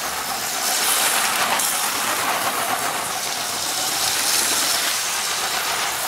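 A running LEGO train, its motor and wheels on plastic track making a steady whirring, hissing noise, heard close up from a camera riding on the train.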